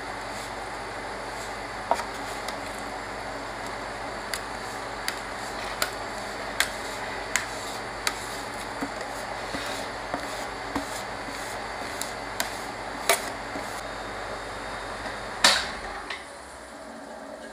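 Metal spatulas scraping and smoothing a sheet of frozen ice cream on a stainless steel ice cream roll cold plate: a steady scraping hiss with a sharp tick of metal on metal about every three-quarters of a second. A louder clack near the end, after which the scraping stops.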